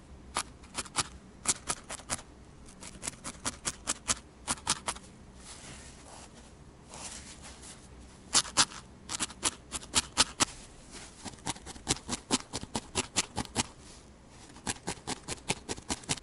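A felting needle repeatedly stabbing into a ball of wool, each stab a crisp crunchy click, several a second in runs with short pauses. In one pause, about five seconds in, a softer rustle of the wool piece being handled.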